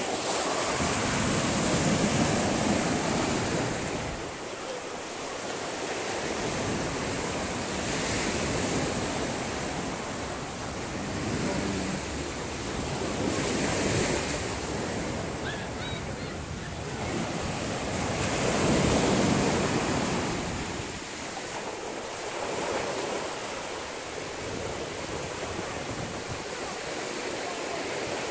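Small ocean waves breaking and washing up onto a sandy beach, the surf swelling and fading every five or six seconds.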